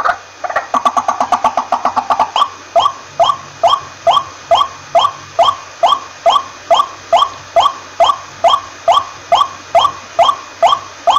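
White-breasted waterhen calling: a fast run of repeated notes, about six a second, then from about two seconds in an even, monotonous series of loud single notes, about two and a half a second.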